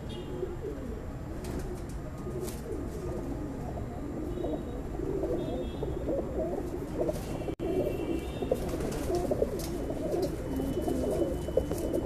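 A coop of white domestic pigeons cooing continuously, several birds overlapping in a low, warbling chorus, with a momentary dropout about two-thirds of the way through.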